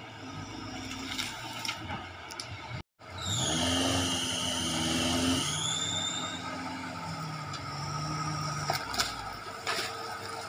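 Small 4x4 off-roader's engine labouring as it crawls up a rough forest track. About three seconds in, after a brief break in the sound, it revs harder for a few seconds with a high whine over it, then eases back.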